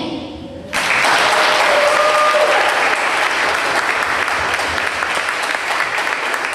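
Audience applauding, the clapping breaking out suddenly just under a second in and continuing steadily.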